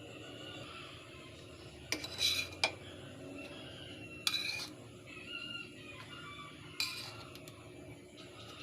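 Metal cutlery clinking against dishes: several sharp clinks in three groups, about two seconds apart.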